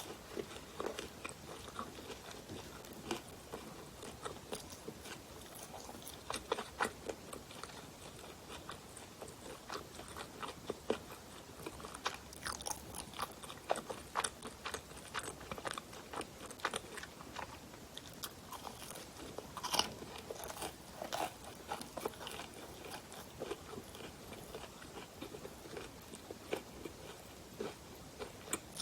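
Close-miked eating of baked bakery pastry and bread: biting and chewing, with many small, irregular crunches and crackles.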